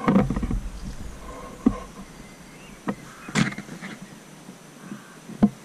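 Walking sounds and handling of a handheld camera: a low rumble in the first second, then a few scattered knocks and footfalls.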